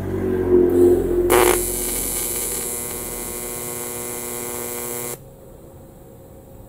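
AC TIG welding arc from a Sanjoe TIG200P AC/DC machine on thin aluminium sheet, set to 100 A, 120 Hz AC frequency and 35% AC balance. The arc strikes about a second in with a loud start, buzzes steadily for about four seconds, then cuts off suddenly.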